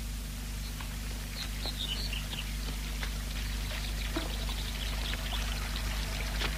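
Water running and trickling steadily, with a few faint high chirps about a second and a half in. Heard over the hiss and low hum of an old film soundtrack.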